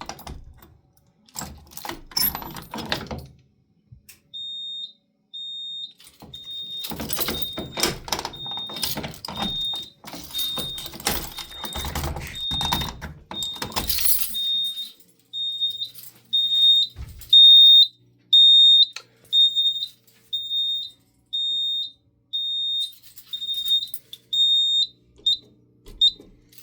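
Fire alarm system's electronic sounder beeping a single high-pitched tone in short even pulses, about one and a half a second, starting a few seconds in. This is the faulty behaviour the tester sets out to show. Rattling and handling noise from a key and hardware sounds over the start and middle.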